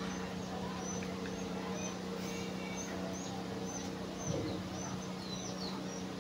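Small birds chirping in quick short calls, again and again, over a steady low hum, with one soft knock about four seconds in.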